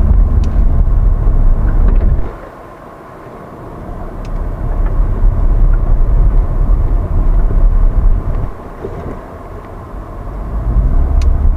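Porsche Cayenne driving slowly over a rough gravel off-road track, heard from inside the cabin: a deep rumble of tyres and suspension on the uneven ground. It fades about two seconds in and again around eight seconds, then builds back up each time.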